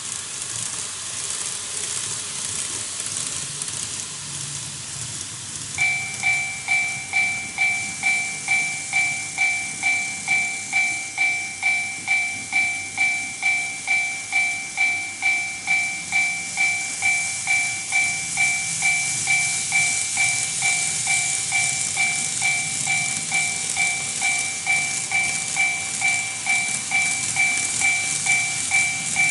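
TOMIX Automatic Level Crossing II sounding its electronic warning bell, a two-tone ding about twice a second, starting about six seconds in: the crossing has been triggered by an approaching model train. Under it, a steady hiss from the running model trains.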